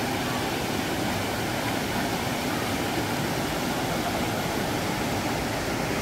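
Small mountain-stream waterfall pouring over rock ledges into a deep pool: a steady rush of water.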